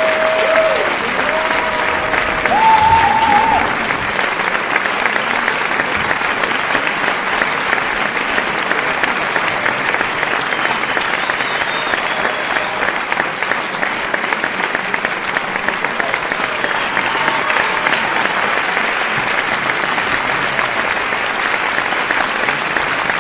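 A crowd applauding, with dense, steady clapping and no break. In the first few seconds a voice or two calls out over it.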